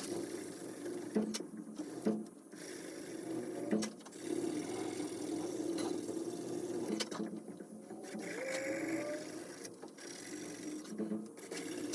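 Sandpaper rubbed back and forth by hand over a burl wood knife handle, a steady run of quick rasping strokes with a few light knocks.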